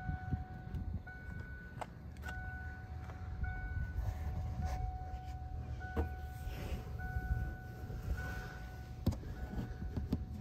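A single-pitched electronic beep or chime tone sounds on and off, held for under a second at a time, over a low rumble. A few sharp clicks and knocks come at about two, five, six and nine seconds in.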